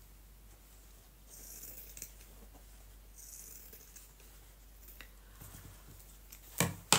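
Scissors cutting through shirt fabric along a sleeve seam: two slow snips of the blades through the cloth. Near the end come two sharp clicks.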